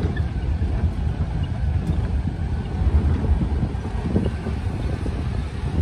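A vehicle driving along a rough gravel road: an uneven low rumble, with wind buffeting the microphone.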